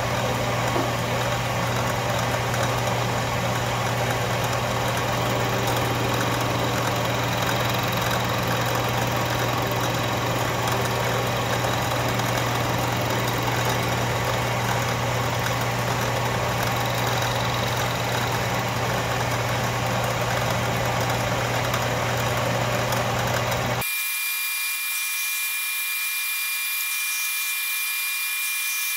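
Metal lathe spinning a fly cutter that takes a facing cut across a metal clamp block: a steady machining noise over a motor hum. About 24 seconds in the sound changes abruptly to a quieter, steadier whine with a high whistling tone.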